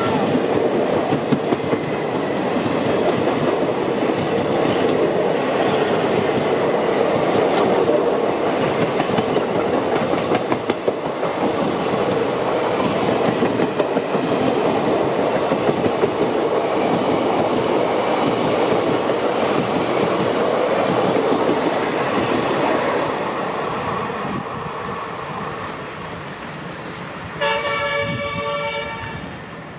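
Passenger coaches of an express train running past close by: a steady rumble, with the wheels clacking over rail joints in repeated clusters. The rumble fades, and near the end a train's air horn sounds one blast about a second and a half long.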